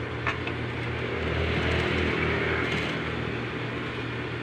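Sewing machine running steadily as it stitches a jacket's lining closed along the zipper, louder for a stretch in the middle, with a single click just after the start.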